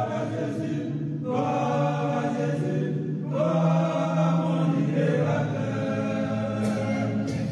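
A group of voices singing together in a chant-like, choir style, in phrases broken by short pauses.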